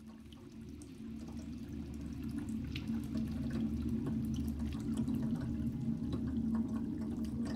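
Ambient soundtrack fading in: water trickling and dripping over a steady low drone.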